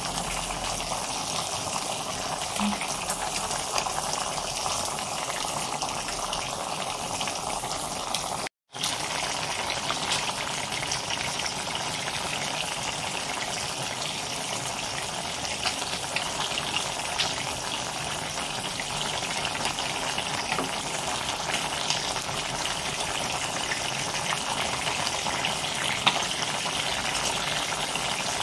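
Broth in a pot of alugbati leaves on the stove, boiling with a steady sizzling hiss. The sound cuts out briefly once, about a third of the way in.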